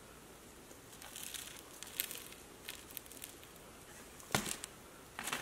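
Light handling noises from a plastic shaker of grated cheese: a soft rustle as it is shaken over the pizza, a few light clicks, and one sharper knock about four seconds in.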